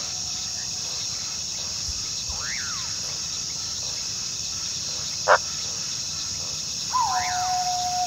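Coyote calls over a steady background of insect chirring. There is a quick rising-and-falling yip a couple of seconds in and a short, sharp yip past the middle, which is the loudest sound. Near the end a long, steady howl begins.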